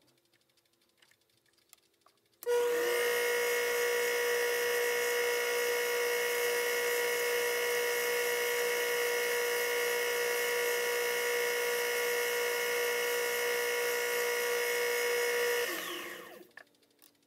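Taig micro lathe switched on about two and a half seconds in, running at a steady speed with a constant whine, then switched off near the end and spinning down.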